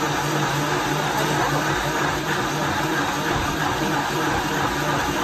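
High-powered countertop blender running steadily at full speed, blending soaked Irish moss (sea moss) with spring water into a gel, with a constant motor hum under the whirr of the jar.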